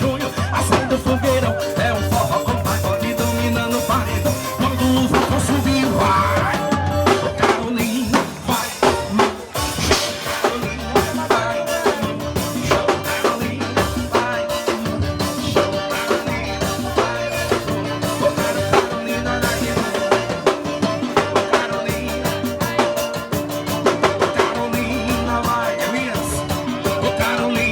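Band music with a drum kit keeping a steady beat under sustained pitched instruments, played through at a soundcheck. It drops briefly about a third of the way in, then carries on.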